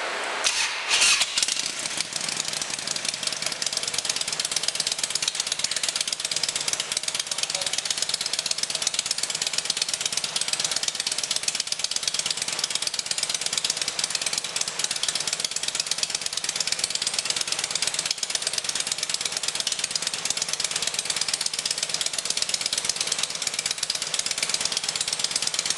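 Harley-Davidson motorcycle's V-twin engine starting about a second in, then idling steadily.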